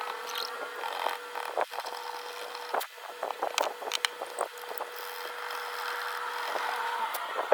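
Small hand tools clicking and scraping against a compact digital camera's parts as it is worked on, in short irregular taps over a steady faint hum.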